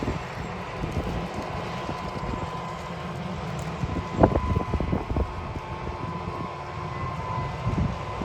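Large farm tractor's diesel engine running steadily under load while pulling an air seeder, with a faint steady whine. Wind buffets the microphone, with a strong gust about four seconds in.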